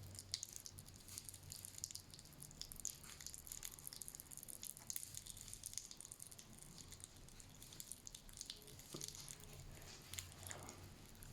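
Faint, scattered high-pitched crackling of popping candy, the fizzing powder on a jelly fried-egg candy that crackles like an egg frying.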